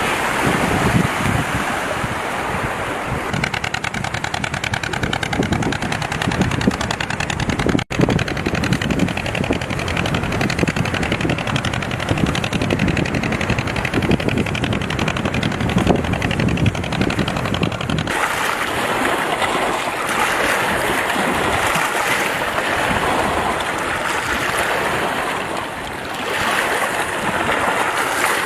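Wind buffeting the microphone over river water splashing and lapping. There is a brief dropout about 8 s in, and about 18 s in the low rumble drops away abruptly.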